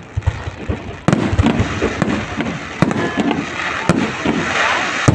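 Fireworks display exploding overhead: a steady crackle of bursting shells with sharp bangs, a loud one about a second in and more every second or so after.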